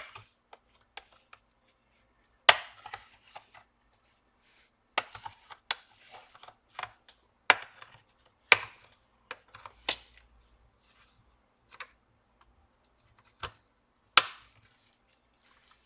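Plastic retaining clips of a laptop's bottom cover snapping loose one by one as the cover is pried open with a blade: about ten sharp snaps at uneven intervals.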